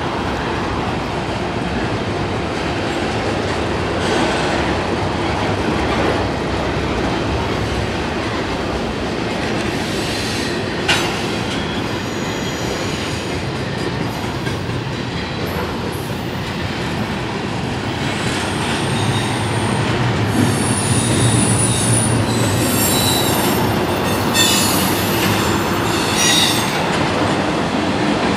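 Norfolk Southern double-stack intermodal freight train rolling past at trackside: a continuous noise of steel wheels on rail with occasional clicks, and high-pitched wheel squeals in the second half.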